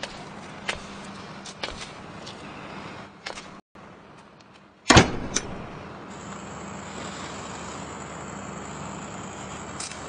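A heavy door slams shut with one loud bang about five seconds in, followed by a smaller knock. A few lighter clicks and knocks come before it, over a steady low hum.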